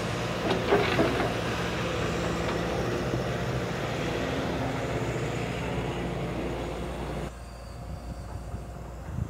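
Digger engine running steadily, with a few knocks in the first second or so; the sound changes suddenly and drops in level about seven seconds in.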